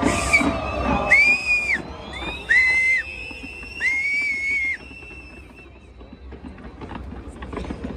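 Three loud, high whistles, each under a second long, holding a steady pitch between a quick rise and fall, over the fireworks show. Faint pops and crackles follow near the end.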